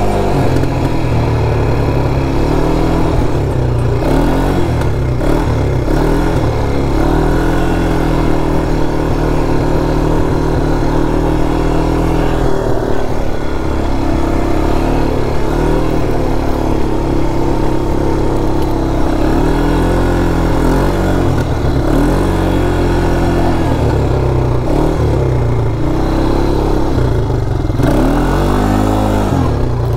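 Engine of a 200cc quad bike (ATV) running as it is ridden, the revs rising and falling again and again with the throttle.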